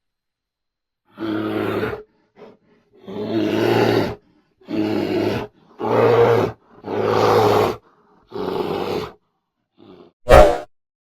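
Bear growling and roaring in a series of about six calls, each roughly a second long, with short pauses between. A brief, louder burst comes near the end.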